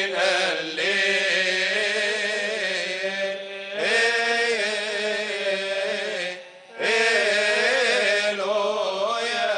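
Coptic Orthodox deacons chanting a liturgical hymn, in three long melismatic phrases with short breaks about three and a half and six and a half seconds in.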